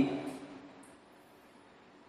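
A man's speaking voice fading out at the end of a phrase in the first second, then near silence: room tone.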